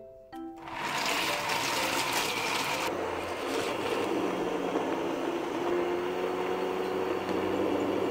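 Immersion (stick) blender switching on about half a second in and running steadily, grinding soaked soybeans in water in a stainless steel bowl. For the first couple of seconds there is a harsher, gritty chopping noise from the whole beans, then a smoother, steady motor sound as they break down into a foamy soy-milk slurry.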